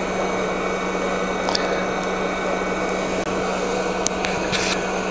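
Hot air rework station's blower running steadily, an even rushing of air with a faint low hum under it. A few faint clicks sound over it.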